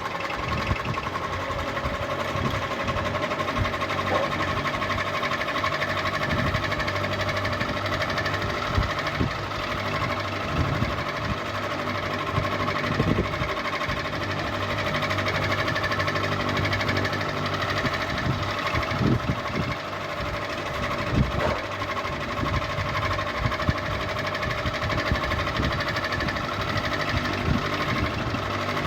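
Ceiling fan running steadily: a constant motor hum with a few steady tones, broken by scattered short ticks and knocks.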